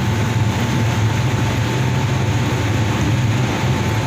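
Steady low rumble with an even hiss over it, unchanging throughout: continuous machine-like background noise.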